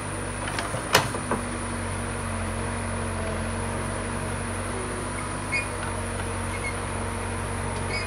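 Escorts backhoe loader's diesel engine running steadily while the backhoe arm digs and lifts a bucketful of soil. A sharp metallic clank about a second in, with a few lighter knocks around it and one more past the middle.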